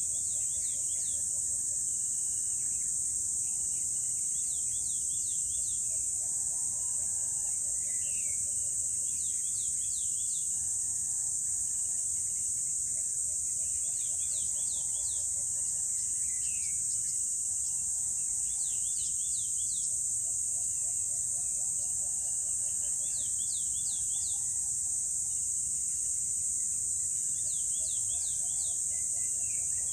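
Outdoor ambience of birds calling over a steady high-pitched insect drone. One bird repeats a short phrase of three or four quick notes about every four to five seconds, and other birds call more softly at a lower pitch.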